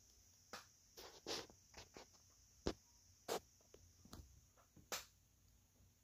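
Faint handling noise: about eight soft, short taps and rustles scattered irregularly over a few seconds, over a steady faint high hiss.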